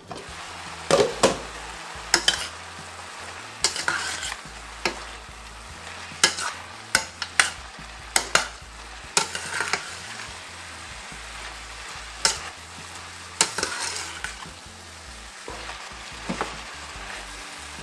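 Red cabbage stir-fry sizzling in a stainless-steel pan while being stirred, with irregular clinks and scrapes of the spoon against the pan.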